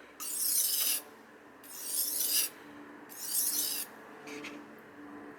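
Steel kitchen knife blade being stroked across a wet whetstone: three long grinding strokes of about a second each, then a brief faint one near the end.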